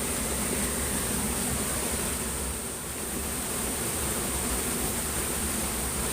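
Steady rushing of flowing stream water with a constant high-pitched hiss above it, easing slightly for a moment near the middle.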